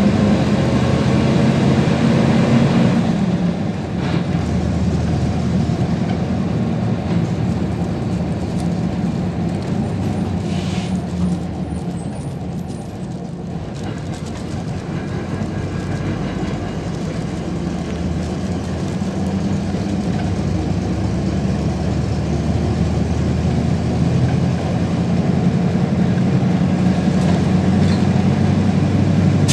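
PAZ-32054 bus engine and drivetrain under way, heard from inside the passenger cabin: a steady low drone with a gliding whine near the start, easing off and quieter around the middle, then pulling harder again.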